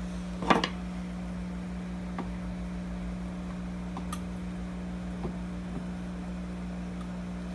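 Steady low electrical hum of an aquarium pump, with a short cluster of soft clicks about half a second in and a few faint ticks after.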